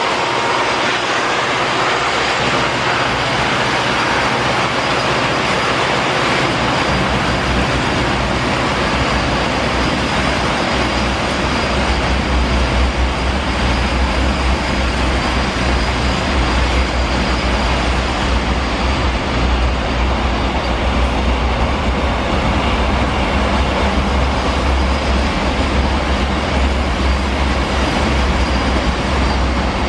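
Container freight train wagons rolling past at close range: a steady, loud noise of steel wheels on rail, with a deep rumble that grows stronger about seven seconds in.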